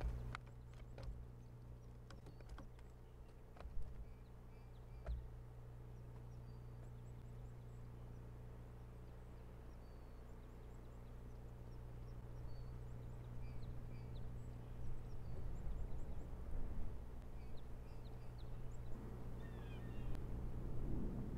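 A steady low electrical hum runs underneath. In the first few seconds there are several sharp knocks and rustles as the osprey shifts on the nest sticks close to the microphone. Faint short bird chirps are scattered throughout, with a small run of falling chirps near the end.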